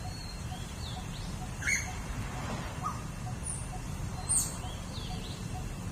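Birds squabbling: short, sharp chirps and squeaky calls, two loudest ones shortly before two seconds and about four and a half seconds in.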